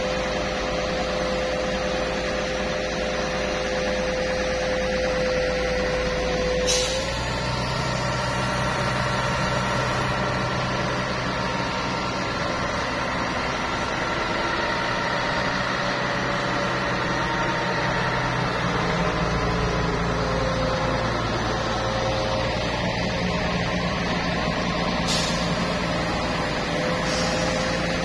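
Truck-mounted concrete boom pump running steadily under load, its engine holding a droning note with a few steady tones. The note shifts about seven seconds in, with a short hiss there and again about 25 seconds in.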